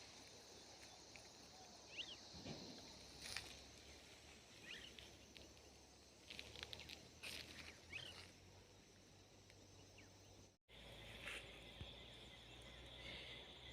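Faint outdoor ambience: a steady high insect drone with a few short bird chirps and some soft clicks. The sound drops out for a moment about ten and a half seconds in.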